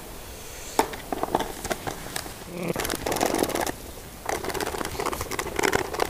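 Irregular small clicks, ticks and rustling of a screwdriver working at the screws of a motorcycle's plastic airbox cover, handled by gloved hands; the clicking comes thicker from about halfway through.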